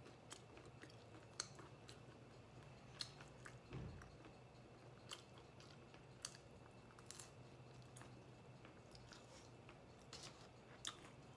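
Faint chewing of pizza, with scattered small mouth clicks and crunches.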